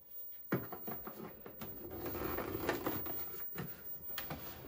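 Handling noise: irregular knocks, rubs and clicks against the TV's painted cabinet, starting suddenly about half a second in.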